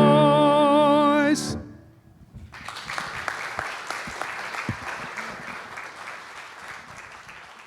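A man's held final sung note with piano, wavering in pitch, ends about a second and a half in. After a short pause, a congregation applauds, slowly fading toward the end.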